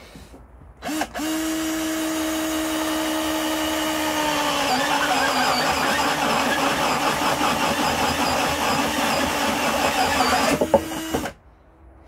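18 V cordless drill with a 25 mm spade wood bit boring a hole through a blue plastic barrel. After a brief blip the motor runs up to a steady whine about a second in. About four seconds in it drops in pitch and turns rougher as the bit cuts into the plastic under load, then it stops sharply about a second before the end.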